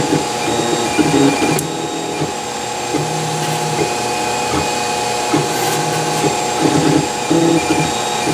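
Wanhao Duplicator 4 3D printer at work. Its stepper motors whine in short steady tones that jump from pitch to pitch as the print head moves back and forth over a small part, over the steady hum of a cooling fan.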